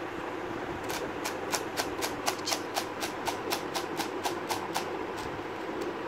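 QiYi Pentacle cube, a plastic 3x3 twisty puzzle, being turned by hand: a run of sharp clicks, about four a second, as its layers are twisted, starting about a second in and stopping near the end. A steady background hum runs underneath.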